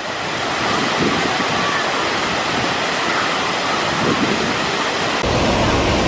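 Steady rush of a tall artificial waterfall on a river rapids ride. About five seconds in, a deeper rush of churning channel water comes in underneath.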